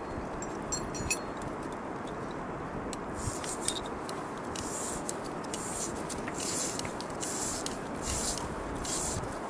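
A climber's hands and shoes scuffing and scraping on granite while clambering up a slab, in several short scrapes through the second half, over a steady hiss. A few light metallic clinks of climbing gear about a second in.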